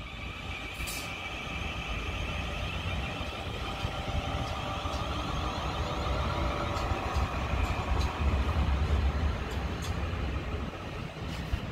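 Siemens Class 450 Desiro electric multiple unit running along the track: a steady electric whine in several tones over a low rumble of wheels on rail, with a few sharp clicks. The rumble grows louder toward the last third and eases off near the end.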